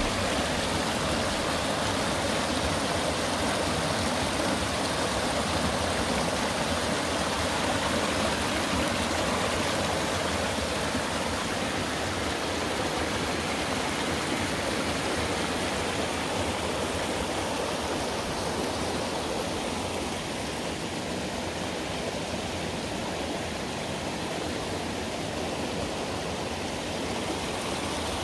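Mountain-valley stream flowing steadily: an even, unbroken wash of running water.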